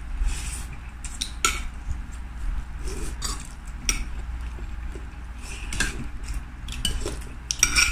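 Metal spoon and fork clinking and scraping against a plate while eating, in scattered separate clicks, over a low steady hum.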